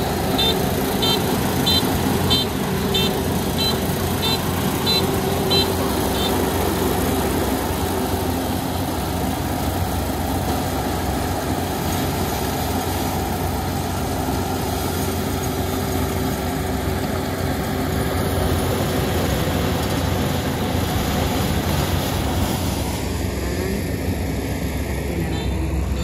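Kubota ER470 combine harvester's diesel engine running steadily, with an electronic warning beeper sounding about twice a second for the first six seconds and again briefly near the end.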